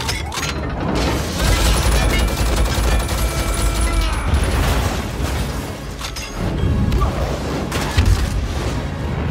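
Action-film battle mix: bursts of gunfire and explosions with a heavy low rumble over an orchestral score, with sharp impacts about six and eight seconds in.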